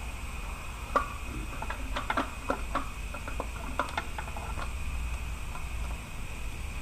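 Scattered light metallic clicks and taps of the long mounting bolt being started by hand into a GM 3.8 starter, with a sharper click about a second in, over a steady low hum.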